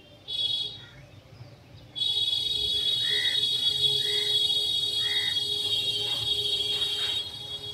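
A loud, steady high-pitched buzz that starts suddenly about two seconds in and lasts about five seconds, after a shorter burst of the same buzz near the start. Three soft short calls, about a second apart, sound over it.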